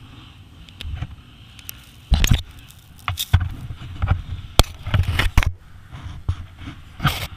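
Irregular knocks and scraping rubs of handling noise on an action camera as it is jostled on the ground after a crash, the loudest about two seconds in and again near the end.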